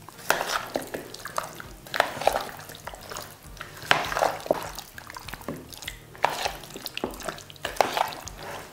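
Raw chicken wings being mixed in a wet, sticky marinade in a bowl: irregular squelching and clicks, a few strokes a second.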